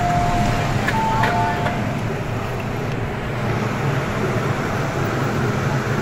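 Steady rumble of an MTR metro station platform with a train standing at it. In the first couple of seconds a short electronic chime alternates between two pitches.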